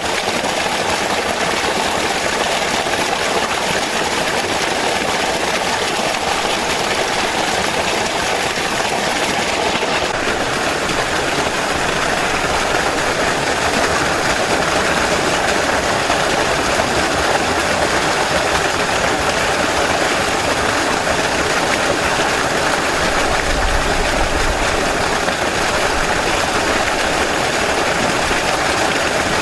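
Rushing water flowing steadily in a natural stream, an even, unbroken wash of sound.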